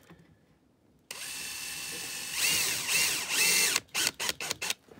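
Power drill with a socket bit driving a carbide stud screw into a boot's rubber sole: the motor starts about a second in, runs steadily, then gets louder and wavers in pitch as the stud bites and seats. It stops a little before the end, followed by several quick short bursts.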